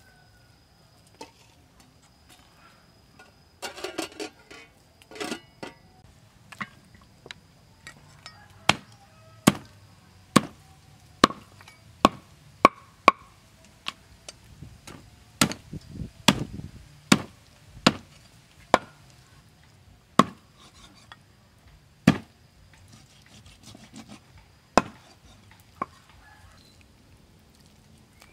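Meat cleaver chopping raw pork on a wooden chopping block: a run of sharp chops about a second apart, starting some eight seconds in. A few softer knocks and rustles come first.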